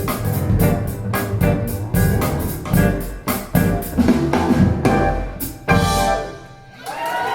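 Music with a drum kit and piano, played back through Wharfedale Linton Heritage loudspeakers, fades out about six seconds in. A voice starts just before the end.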